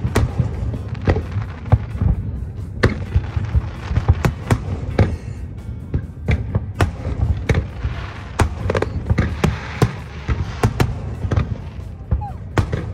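Fireworks: aerial shells bursting overhead in a rapid, irregular string of sharp bangs, often several a second, over a steady low rumble.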